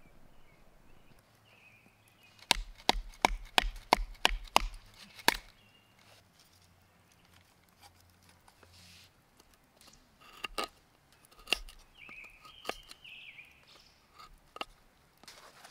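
Kindling being split with a knife on a wooden board: a quick run of about ten sharp wooden knocks over some three seconds, then a few single knocks spaced apart.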